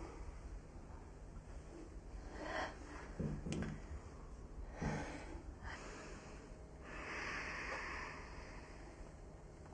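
Faint breathing: a few soft breaths and sighs, with a longer breath about seven seconds in, and a single small click in the middle.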